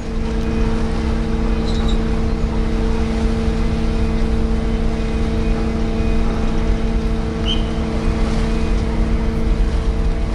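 The Blue Star Patmos ro-ro ferry's engines and propellers running steadily while it manoeuvres: a constant machinery drone with a low rumble of churning propeller wash beneath it.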